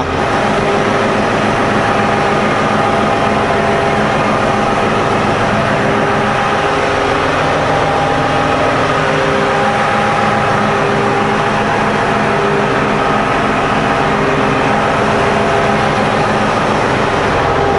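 Caterpillar 988H wheel loader's diesel engine idling steadily, a low drone with a few steady whining tones over it, heard up close beside the machine's frame.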